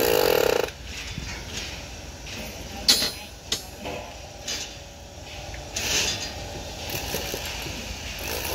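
A handheld electric power tool runs in a short loud burst against concrete right at the start, then stops. Scattered sharp knocks and clinks of metal and concrete follow, two of them close together about three seconds in.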